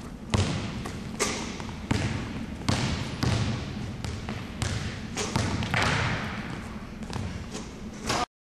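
A basketball being dribbled hard on a hardwood gym floor, with sharp bounces at an irregular pace of about one a second.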